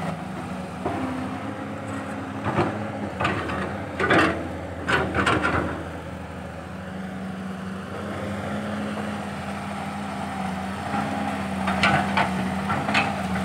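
Caterpillar 320 hydraulic excavator running steadily on its diesel engine while digging laterite soil. Its bucket scrapes and clunks against earth and rock in a cluster of strokes a few seconds in and again near the end.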